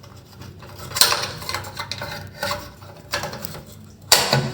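Scattered short clicks, taps and scrapes of toilet flush-tank fittings being handled and screwed into place. A much louder sound starts just before the end.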